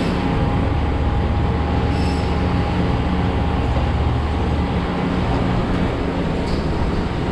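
Steady machinery drone: a continuous low hum with a constant thin higher tone over it and an even noisy wash, unchanging throughout.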